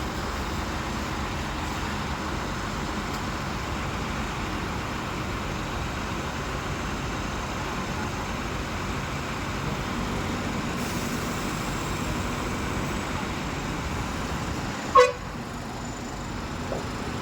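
Asphalt milling machine running steadily while loading, a dense even mechanical noise. About fifteen seconds in there is a single short, loud horn toot.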